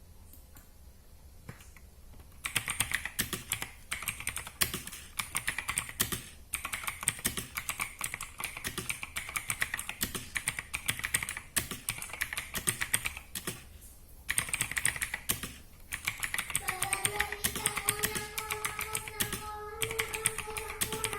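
Fast typing on an Armaggeddon MKA-3C mechanical keyboard with Outemu blue switches: a dense run of loud, clicky keystrokes, starting a couple of seconds in and broken by brief pauses.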